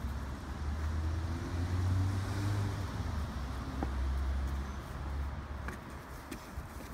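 Low rumble of a passing vehicle, swelling over the first couple of seconds and fading after about five. Faint scratching of puppies' paws digging in sand can be heard near the end.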